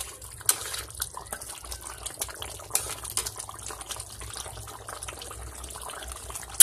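Fish curry gravy simmering in an open kadhai, bubbling and spitting with irregular small pops and crackles.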